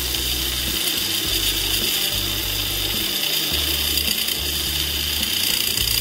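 Washing-machine motor turned bench grinder running, with a steel knife blade pressed against its spinning abrasive disc: a steady high grinding hiss as the blade is sharpened.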